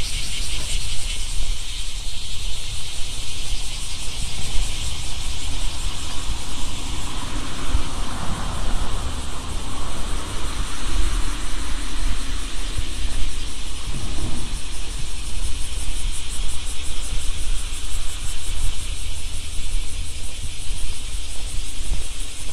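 Many insects trilling in a steady, finely pulsing high chorus from the summer rice field, over a low rumble of wind on the microphones. Around the middle a vehicle passes, its noise swelling and fading over a few seconds.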